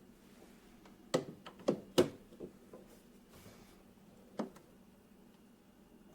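Several short, sharp knocks and clunks of metal espresso gear being handled and fitted: a tamped portafilter being set into the espresso machine. Three knocks come close together between about one and two seconds in, the third the loudest, and one more follows about four seconds in.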